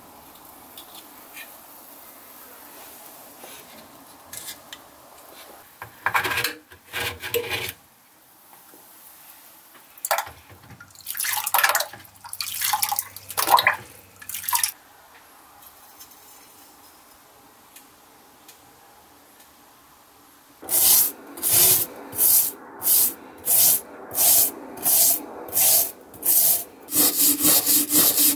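Faint steady fizzing of an electrolysis rust-removal bath, broken by a few louder bursts of handling and water. From about two-thirds of the way in, a stiff brush scrubs the wet Wagner cast iron cornbread pan in rhythmic strokes, about one a second, speeding up to several a second near the end.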